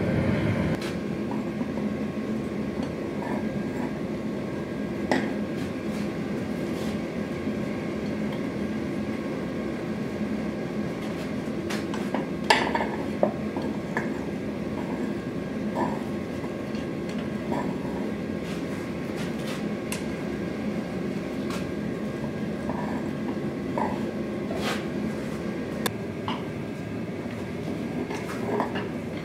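Gas forge burner running with a steady roar, with scattered metallic clinks and taps as steel is handled at the forge mouth, the loudest about twelve and a half seconds in.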